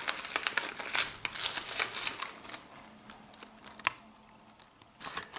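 Paper crinkling and rustling as a folded diamond paper parcel is handled and opened. The crinkling is dense for about three seconds, then quieter with a single sharp tick about four seconds in.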